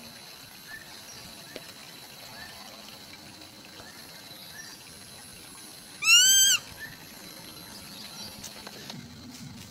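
A single loud bird call about six seconds in: one high note that rises and falls, lasting half a second. Behind it are faint short chirps and a steady high insect note.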